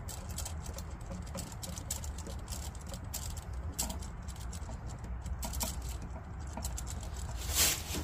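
Plastic wire nut being twisted onto two neutral wires: faint small clicks and scraping, over a steady low hum.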